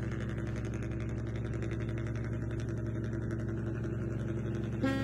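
Steady low engine drone with a fine, even throb, like a ship's diesel idling, for the remote-control model ship. Just before the end it switches abruptly to a different steady hum with a clearer pitch.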